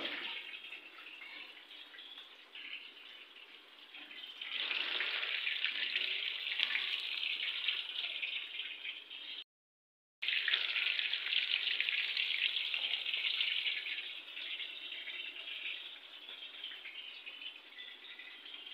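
Gram-flour-coated, marinated chicken pieces deep-frying in a pan of hot oil: a steady sizzle that grows louder about four seconds in. The sound cuts out completely for under a second about halfway through.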